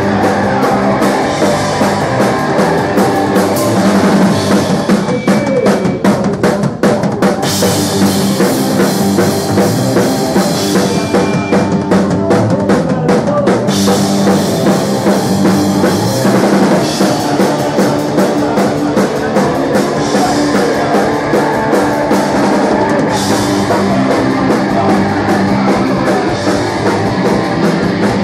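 A punk rock band playing live, heard in the room: a drum kit pounding steadily under electric guitars and bass guitar.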